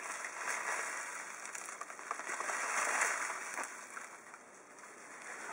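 Hatchrite granular incubation substrate pouring from its bag into a plastic takeaway tub: a continuous grainy hiss of granules landing. It grows louder toward the middle and tails off near the end.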